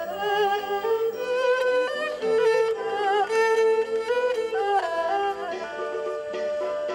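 Erhu (two-string Chinese fiddle) bowed in a slow melody, its notes wavering with vibrato and sliding between pitches, over a steady held note underneath.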